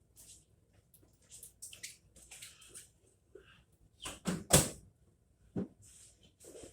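Handling noises: scattered rustles and scrapes, with a cluster of sharp knocks a little past halfway and one more knock about a second later.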